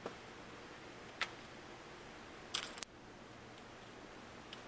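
Light clicks and taps from a Chromebook's plastic and metal parts being handled and set in place during disassembly. There is a single click at the start, another a little over a second in, and a quick run of clicks about two and a half seconds in.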